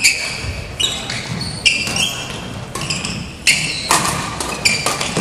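Badminton play on a hardwood gym court: sharp racket-on-shuttlecock hits and shoe squeaks on the wooden floor, about one every second, echoing in a large hall.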